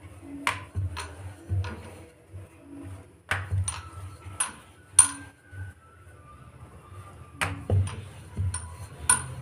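Wooden rolling pin rolling out a methi paratha on a wooden board: a low rumble from the pin rolling back and forth, with irregular sharp clicks and knocks as it hits the board.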